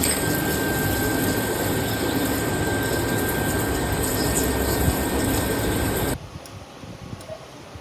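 Manual metal lathe running through a cut, a dense mechanical noise with a thin steady whine over it. It cuts off abruptly about six seconds in, leaving a much quieter background hum.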